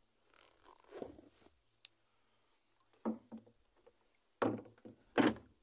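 Water slapping against the hull of a small piragua in several separate splashes, the two loudest near the end. This is typical of the wake of speedboats that have just passed.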